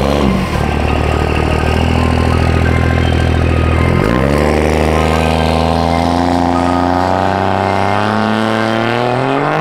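Built 1100 hp third-gen Cummins inline-six turbo diesel in a Dodge Ram pickup, running at steady revs, then dipping about four seconds in and revving steadily higher through the rest.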